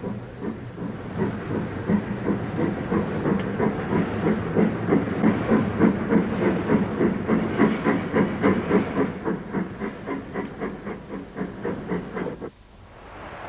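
Steam locomotive working hard, a steady chuff of about three beats a second with steam hiss; it cuts off suddenly near the end.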